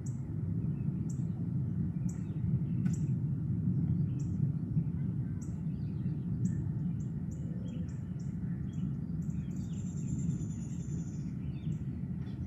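A long, low roll of thunder that swells over the first few seconds and then slowly fades. Above it a bird chirps about once a second, with a quicker run of chirps and one drawn-out high note near the end.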